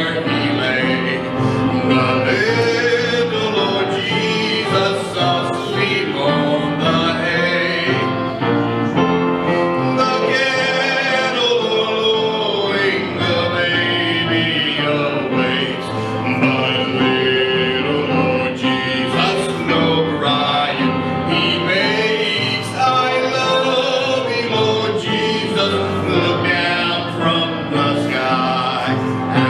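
Church hymn singing: voices, male ones among them, singing a gospel hymn continuously.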